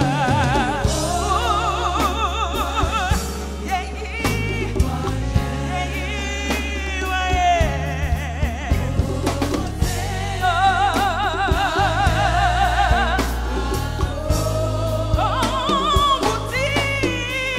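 Gospel worship music: singers holding long notes with heavy vibrato over a steady bass line and drum kit.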